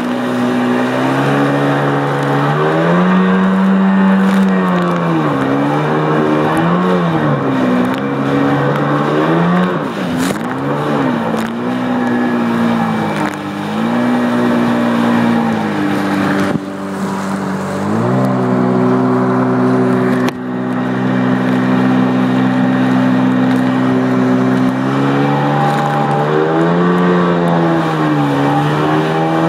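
1993 Sea-Doo XP personal watercraft's two-stroke engine running under way, its pitch rising and falling as the throttle is worked. It holds one steady pitch for several seconds past the middle, then rises and falls again near the end. A steady hiss of water and wind runs underneath.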